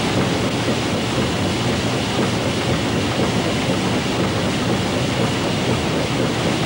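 A lake steamer's steam engine running below decks: a loud, steady mechanical clatter from the engine room machinery.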